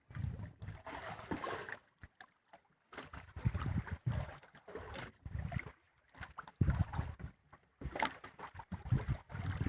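Irregular gusts of wind and water noise on a small boat at sea, coming and going in uneven surges with short lulls.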